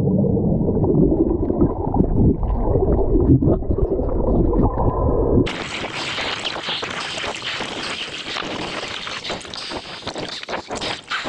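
Muffled churning and bubbling of water heard from under the surface as a diver plunges in beside a boat. About five and a half seconds in it cuts off abruptly to a quieter, steady crackling underwater hiss.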